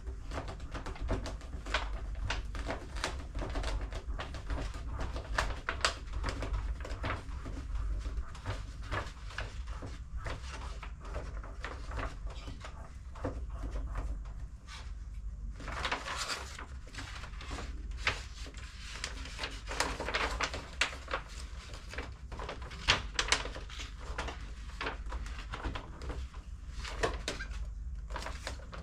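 Irregular crackling, tapping and rustling of adhesive vinyl sticker sheet being handled and pressed onto a refrigerator, with a steady low hum underneath.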